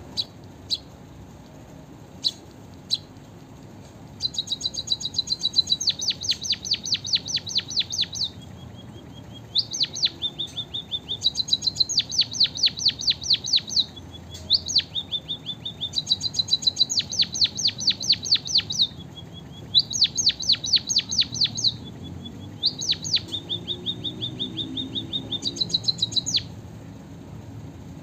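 White-headed munia singing: a few single chips, then from about four seconds in, a string of fast, high trilled phrases a second or two long with short pauses between them. Its song is filled with learned canary phrases.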